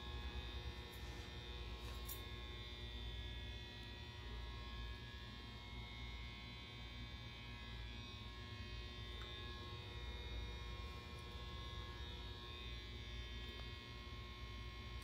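Steady low buzzing hum, unbroken throughout, with a couple of faint clicks about a second and two seconds in.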